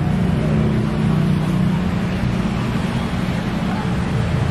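Steady city street noise: the low, even rumble of passing traffic on a busy road.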